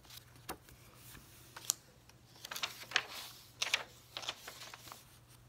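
Paper cards and journal pages being handled: a card slid out and pages turned, giving scattered soft rustles and taps, most of them in a cluster through the middle.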